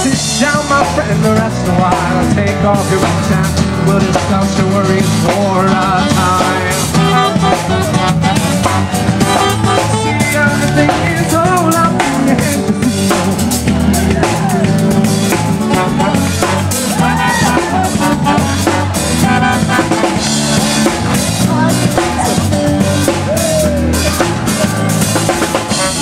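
Live band playing upbeat music, with a steady beat on a drum kit under electric guitars and horns.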